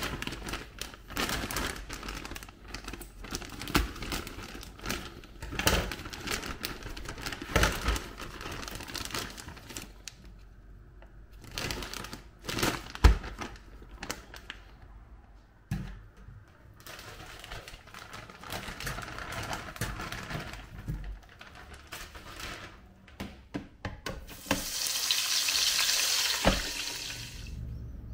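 Plastic bag of frozen calamari rings crinkling and rustling as it is handled, in irregular crackling spurts with a few sharp clicks. Near the end comes a steady high hiss lasting a couple of seconds.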